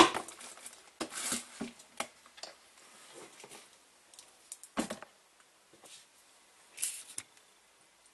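Scattered clicks, knocks and rustles of hands working at a workbench, handling a small amplifier circuit board with its wires and picking it up off the cardboard.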